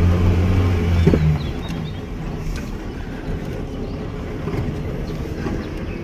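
Safari vehicle's engine running as it drives along a dirt forest track: a strong steady engine note for about the first second and a half, then a rougher, even rumble of the moving vehicle over the track.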